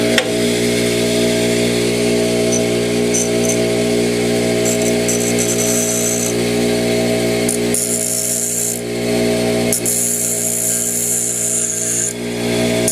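A motor-driven machine running steadily with an even, pitched drone, with stretches of high hiss coming and going on top.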